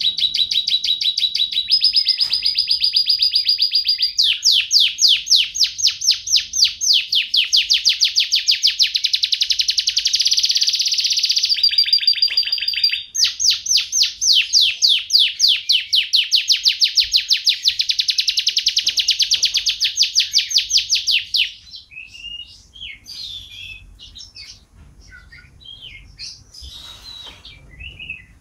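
Canary singing a long unbroken song of fast rolling trills and held whistled notes. About three-quarters of the way through it breaks off into quieter, scattered short chirps.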